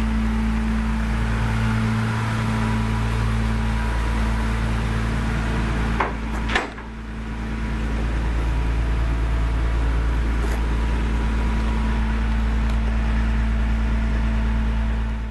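A motor or machine running steadily with a low hum. Two sharp knocks come about six seconds in, after which the sound dips and builds back up.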